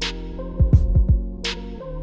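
Background hip-hop beat: sustained synth notes over a kick drum and snare hits.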